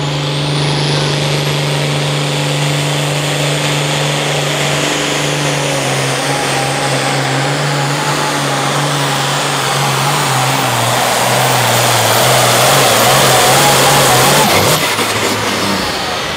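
International hot farm pulling tractor's turbocharged engine at full throttle hauling the sled, a high turbo whistle over a steady engine drone whose pitch sags lower as it labours under the load. About fifteen seconds in the throttle comes off, the engine drops away and the turbo whistle winds down.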